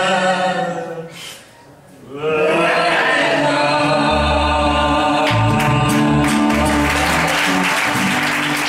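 Live singing with two acoustic guitars at the end of a song: a long held sung note, a brief pause about a second and a half in, then voices and guitars on the closing phrase. Applause starts to rise near the end.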